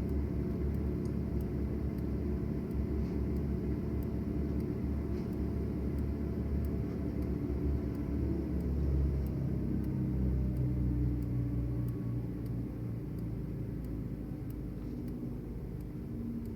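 A large engine running steadily with a low rumble, easing a little about twelve seconds in.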